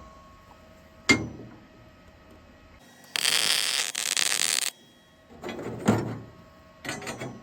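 A sharp clank of steel parts about a second in, then a MIG welder tacking for about a second and a half, a steady crackling hiss of the arc. More metal knocks and clicks follow as the parts are handled.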